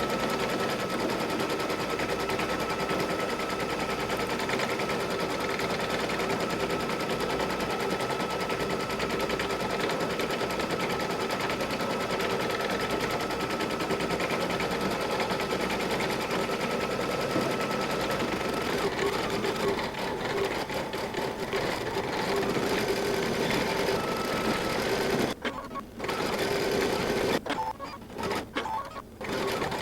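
Baby Lock Meridian embroidery machine stitching out a large design, a rapid steady needle rattle with a faint whine. About 25 seconds in it pauses, then runs in short bursts near the end as it works the last stitches of the design.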